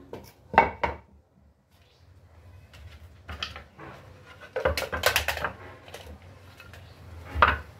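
A series of short wooden knocks and clatters as pieces of hardwood board are picked up, set down on a concrete floor and measured with a tape measure. The loudest knocks come about half a second in, with a rattling run of clicks around five seconds in and one more knock near the end.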